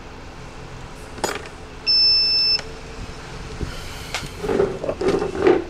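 A single steady, high-pitched electronic beep lasting under a second, about two seconds in, just after a sharp click.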